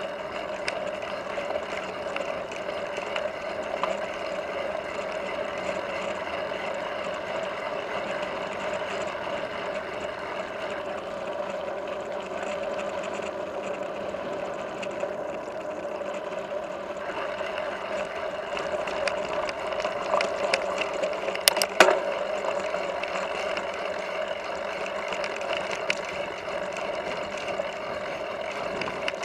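Mountain bike ridden over a gravel double-track: steady rolling noise of tyres and drivetrain with the bike rattling, and a cluster of sharp knocks about three-quarters of the way through as it hits bumps.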